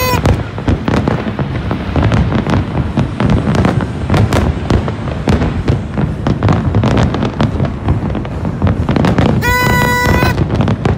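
Fireworks display: rapid, irregular bangs and crackles of bursting aerial shells over a continuous low rumble. Near the end a horn sounds one steady note for under a second.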